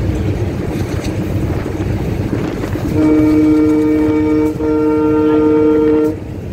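Diesel locomotive's horn sounds two steady blasts, the second following almost without a break, about three seconds in, over the rumble of the moving train.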